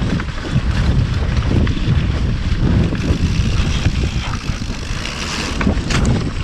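Wind buffeting a GoPro's microphone while riding a mountain bike, a steady low rumble, with a few sharp clicks and knocks from the bike near the end.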